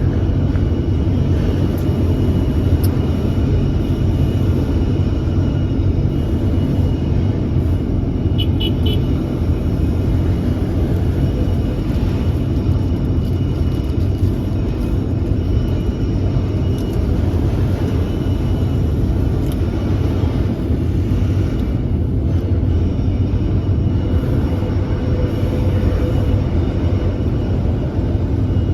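Large hydraulic excavator running, a steady low diesel rumble, with a brief cluster of high beeps about eight seconds in.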